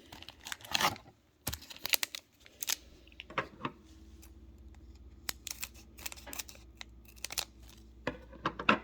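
A foil booster-pack wrapper from a Star Wars CCG pack being torn open and crinkled, in several short rips and crackles with small clicks between them; the loudest bursts come in the first couple of seconds and again near the end.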